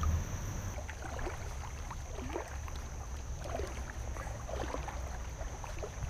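Creek water gurgling and babbling in short, faint bursts over a steady low rumble on the microphone, with a constant high insect drone, likely crickets, behind it.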